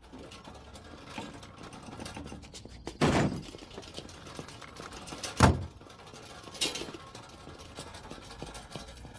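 A dull thud about three seconds in, a sharp knock about two seconds later and a lighter knock after that, over faint steady background noise.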